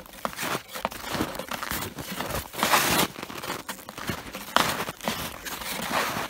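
Footsteps on snowshoes crunching through snow, about one step a second, the loudest about three seconds in and again at four and a half seconds.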